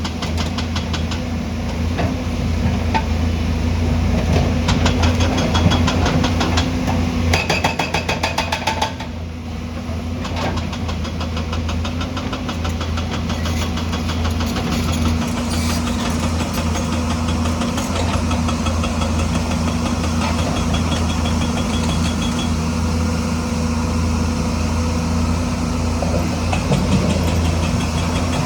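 Diesel engine of heavy construction machinery running steadily. A fast, even clatter joins it for about two seconds and stops abruptly about nine seconds in.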